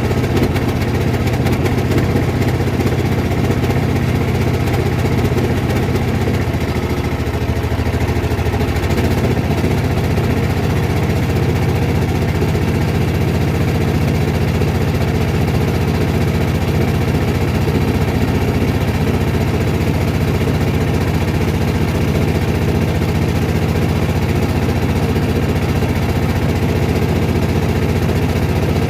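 Small boat's engine running steadily under way, with a slight change in pitch about seven seconds in.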